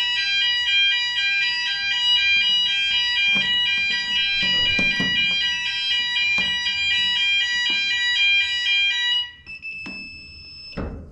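Fire alarm sounders going off during a test, their loud tone switching back and forth between two pitches, then cutting off suddenly about nine seconds in. A higher steady beep follows for about a second, and a thump comes near the end.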